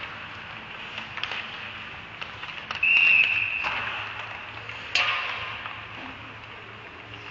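Ice hockey rink sounds: sticks and pucks clacking on the ice, echoing in a large arena. About three seconds in, a loud metallic ping rings out and dies away over about a second, as a puck strikes the steel goal post. About five seconds in, another sharp bang follows as a puck hits the boards.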